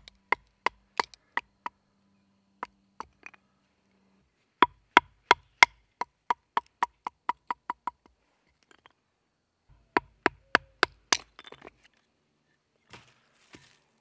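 A wooden baton striking the spine of a knife, driving the blade down through a small split stick of wood: sharp knocks in quick runs of about three to four a second, with pauses between runs. Faint handling noise follows near the end.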